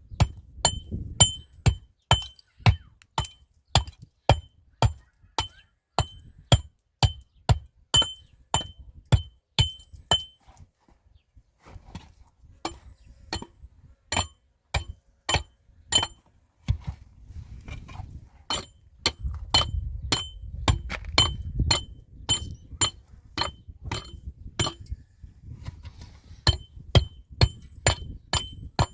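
Repeated sharp strikes, about two to three a second, each with a brief metallic ring, pausing briefly about eleven seconds in.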